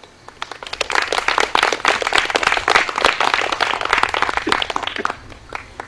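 Audience applauding, many hands clapping. It swells within the first second, then dies away, with a few last separate claps near the end.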